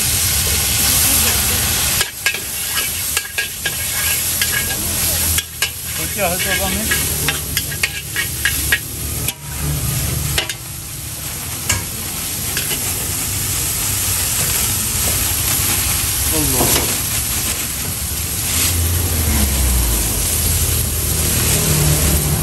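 Noodles sizzling in a hot wok as they are stir-fried, with the steel spatula scraping and clanking against the pan, its strokes most frequent in the first half.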